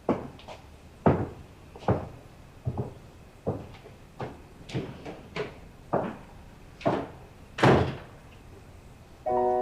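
Footsteps walking away on a hard floor: about ten firm steps at an even pace. Soft piano music begins near the end.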